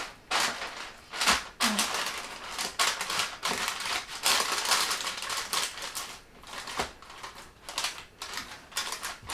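Baking paper crinkling and rustling in irregular scrunches as hands press raw minced meat flat onto it in a lined baking tray.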